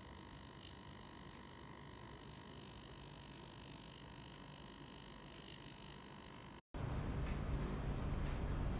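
Steady electric hum of a skin-clinic facial treatment machine, with several high, steady whines over it. About two-thirds through there is a sudden cut to a louder, low rumble.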